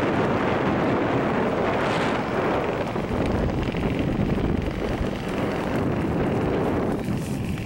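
Wind buffeting the microphone of a camera carried aloft on a parasail: a steady, loud rush that thins a little near the end.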